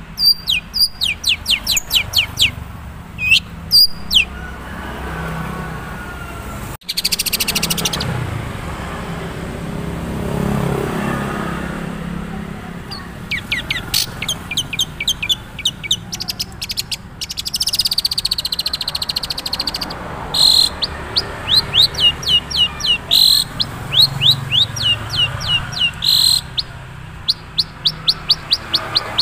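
Long-tailed shrike (cendet, Madura type) singing its own natural song with little mimicry learned yet: quick runs of sharp, downward-sweeping chirps in repeated bursts, broken by a harsh rasping note about seven seconds in.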